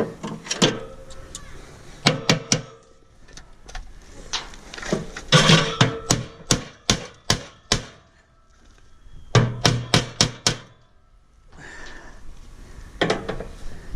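Sharp metallic knocks and clanks as a tool is worked against a rusted-in pin on a scrap aluminum grill: scattered strikes, then a quick run of about seven, roughly three a second, near the middle, and four more a little later.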